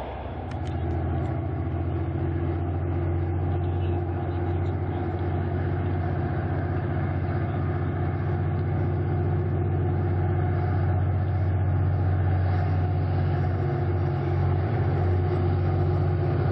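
V/Line A class diesel-electric locomotive's EMD two-stroke V16 engine working as it hauls a passenger train past, a steady low drone that grows gradually louder as it approaches.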